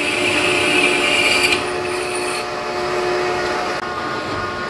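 Metal lathe running, its cutting tool turning down a metal workpiece. A high-pitched cutting sound drops away about one and a half seconds in, leaving the machine running steadily.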